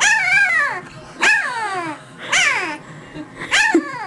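White German Shepherd puppy, newborn with eyes still closed, whining really loud four times in a row. Each cry is high-pitched and falls in pitch. The puppy is protesting at being picked up and held.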